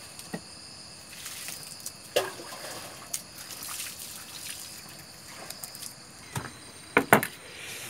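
Dry rustling and crackling of lemongrass stalks being peeled apart by hand, with a few sharp snaps, the loudest about seven seconds in. A steady high chirring of night insects runs throughout.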